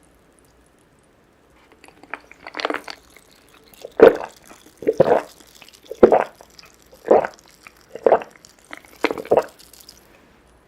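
Close-up wet, squishy chewing of seafood, in bursts about once a second after a quiet start.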